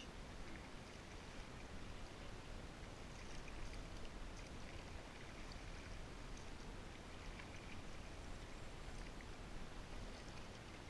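Water sounds around a kayak: a steady wash of water with small scattered splashes and drips, as from paddling.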